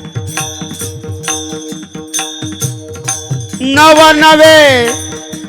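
Kirtan accompaniment: steady held instrumental notes under a regular beat of small hand cymbals (taal) and drum strokes. Past the middle, a voice sings one long held note that falls away at its end.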